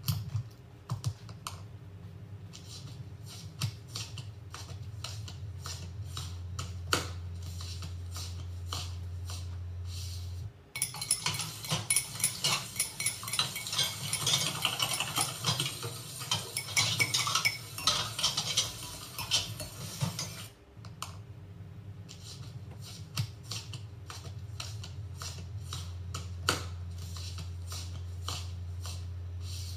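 Light clicking and clinking of small hard objects, like crockery and cutlery being handled, becoming a dense clatter for about ten seconds in the middle. A low steady hum runs underneath and drops out while the clatter is densest.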